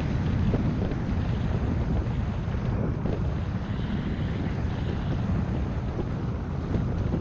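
Wind buffeting a GoPro's microphone during a downhill ski-slope descent at about 30 mph: a steady, heavy low rumble with a lighter hiss above it.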